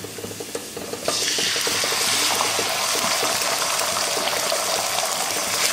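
Garlic and curry leaves crackling in hot oil in a stainless steel kadai; about a second in, beaten eggs are poured in and the pan breaks into a loud, steady sizzle as the egg hits the hot oil.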